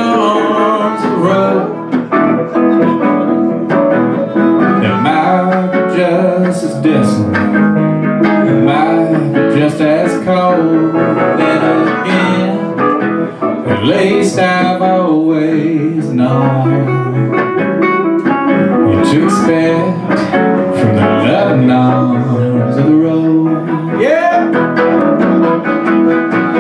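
Live country band playing an instrumental break: guitar, keyboard and harmonica together, the harmonica sliding and bending between notes.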